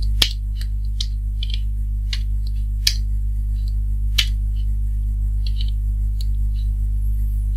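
Computer keyboard being typed on: irregular single key clicks, a few a second, over a steady low electrical hum.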